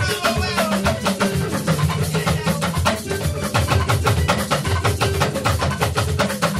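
Live band playing up-tempo music, led by a drum kit and percussion in a dense, steady rhythm over a bass line.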